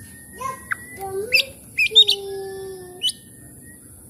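Oriental magpie-robin (kacer) singing: a run of clear whistles and sharp upward-sweeping chirps, with one long, low, slowly falling whistle about two seconds in.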